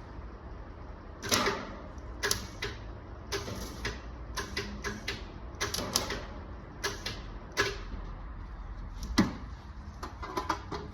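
A welder laying short tack welds on thin car-body sheet metal: about a dozen brief crackling bursts at irregular intervals, the loudest a little after one second and just after nine seconds. The welder is on its lowest setting and the thin metal burns through easily, so he keeps tacking until he reaches fresh metal.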